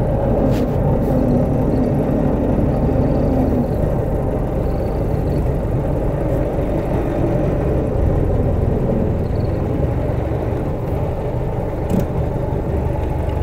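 Model T Ford's four-cylinder engine running steadily while the car is under way, heard from the driver's seat.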